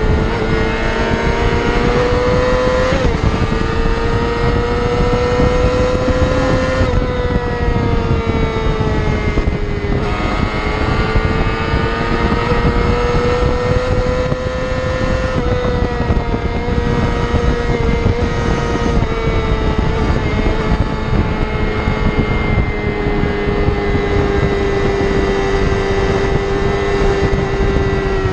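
Yamaha R6's inline-four engine running at high revs at freeway cruising speed, its pitch holding steady with slow rises and falls and a few brief dips, over steady wind and road noise.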